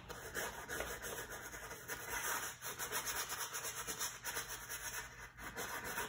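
Paintbrush scrubbing oil paint across a stretched canvas in short, repeated strokes: a dry, scratchy rubbing.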